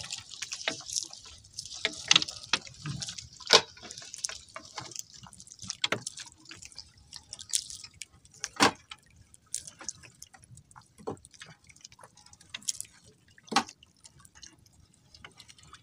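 Seawater dripping and splashing in irregular drops and small splashes, as a wet gill net is hauled into the boat.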